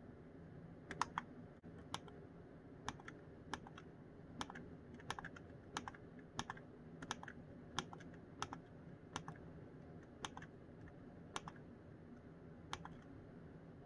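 Small tactile push buttons on a Spektrum Smart ESC Programmer box clicking under a thumb, about fifteen presses, one every two-thirds of a second or so, each a quick double click on press and release, as the programmer steps item by item through the speed control's settings menu.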